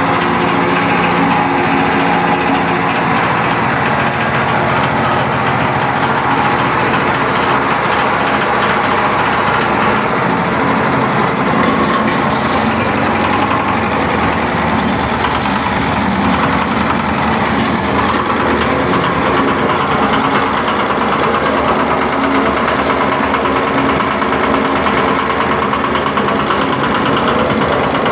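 Engine of a mini concrete mixer running steadily at a constant speed.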